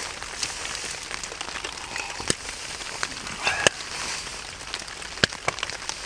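Light drizzle falling on a tent's fabric, heard from inside the tent: a steady soft hiss with scattered single drops ticking sharply on the fabric, a few of them louder.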